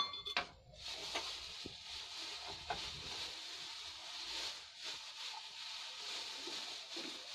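Gajar ka halwa (grated carrot cooked down in milk and sugar) sizzling in the pan over the gas flame: a steady hiss with faint scattered pops. A short metallic clink right at the start.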